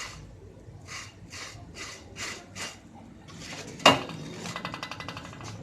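Kitchen utensil sounds: a run of rhythmic scraping strokes, two or three a second, then a sharp clank about four seconds in, followed by a light, fast rattle.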